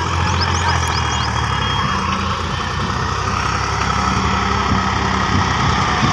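Heavy diesel machinery engine running steadily with a low hum. A quick run of short high chirps comes in the first second.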